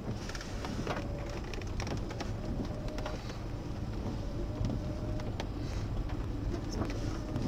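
Inside a Mercedes car driving over a wet, muddy dirt road: a steady low rumble of engine and tyres, with scattered sharp ticks and taps throughout.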